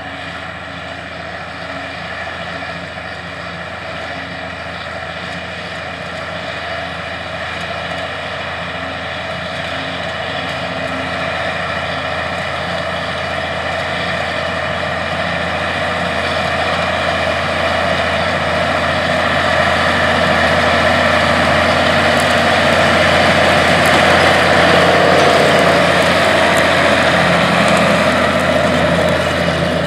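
Allis-Chalmers 200 tractor's six-cylinder diesel running steadily under load as it pulls a tandem disk. It grows steadily louder as the tractor approaches, peaks as it passes close by about 25 seconds in, then eases slightly.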